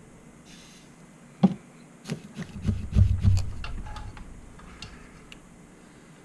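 A sharp knock, then a quick run of clicks, taps and low thumps, the sound of small tools and parts being handled on a workbench during a solder repair.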